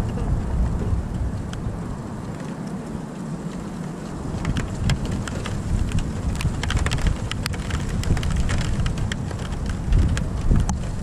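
Rain falling in a thunderstorm, with many single drops ticking sharply close by from about four seconds in. Under it runs a low rumble that swells at the start and again near the end.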